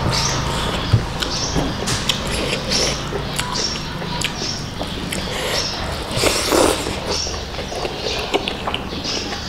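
Close-miked eating sounds: wet chewing and lip smacks with irregular small clicks, with fingers squishing and mixing curry-soaked biryani rice on a banana leaf.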